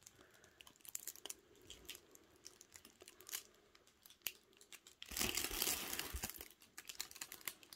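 Thin plastic protective film on a diamond painting canvas crinkling and crackling as it is handled, in scattered small clicks with a louder rustle about five seconds in.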